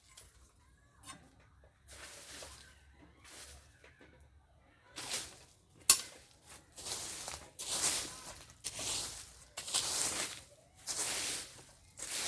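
Repeated rustling, scraping strokes, faint at first and then louder and about once a second from about halfway in, with one sharp snap near the middle.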